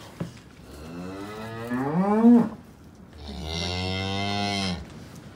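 Cattle mooing twice. The first call rises in pitch over about two seconds, and the second is lower and steadier.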